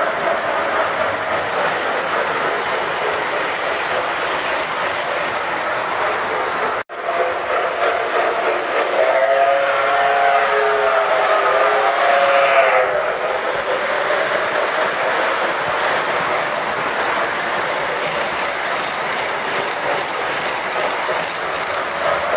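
Lionel O-gauge model trains running on three-rail track with a steady rumble and wheel clatter. From about 9 to 13 seconds in, a model train whistle sounds, a chord of several tones that bends and rises at the end.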